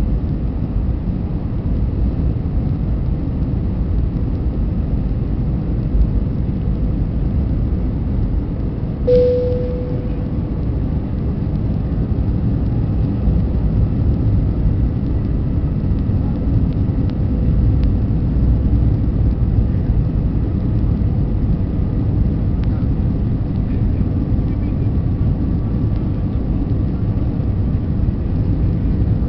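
Airbus A320 cabin noise on descent: a loud, steady low rumble of engines and airflow. About nine seconds in, a single short tone sounds and fades.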